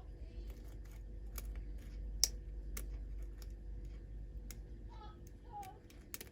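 Lock pick and tension wrench working the pins of a pin-tumbler lock during picking: sharp, irregular small metallic clicks, the loudest about two seconds in, over a steady low hum.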